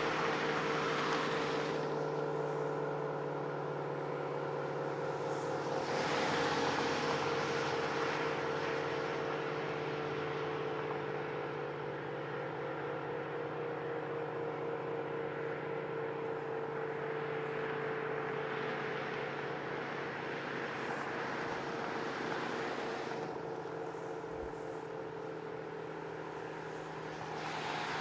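ACA P-50 rotating outdoor warning siren sounding a long, steady tone that drifts slowly lower in pitch. It grows louder and brighter about six seconds in and again near the end as the rotating horn turns toward the microphone.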